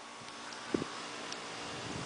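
Quiet outdoor background noise with a faint steady hum, and a single soft, low thump about a second in.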